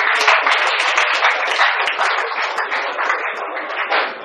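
Audience applauding, many hands clapping in a dense patter that gradually thins out toward the end.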